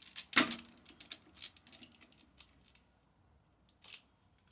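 Irregular run of sharp clicks and taps from hand tools and chainsaw parts being handled during dismantling, loudest about half a second in, then a pause and a single click near the end.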